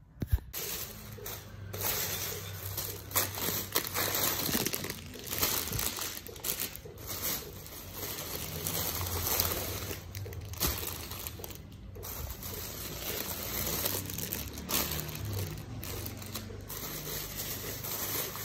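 Thin plastic shopping bags rustling and crinkling as a hand rummages through groceries inside them, with small knocks and clicks scattered through.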